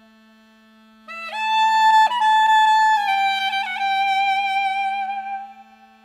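Background music: a slow melody of long held, sliding notes over a steady low drone, entering about a second in and fading near the end while the drone carries on.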